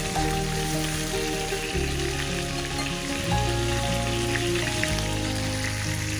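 Chicken breast sizzling and crackling in a frying pan, with background music holding long notes that change every second or two.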